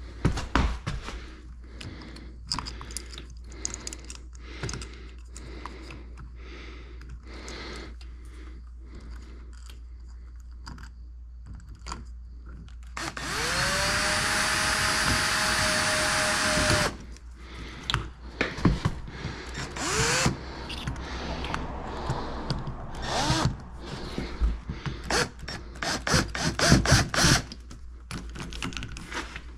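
A power drill spinning up and running steadily for about four seconds midway, with a couple of short bursts later, amid knocks and clatter of tools and materials being handled.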